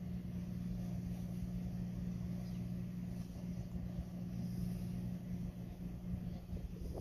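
Distant Union Pacific diesel locomotives approaching slowly, their engines making a steady low drone, with wind rumbling on the microphone.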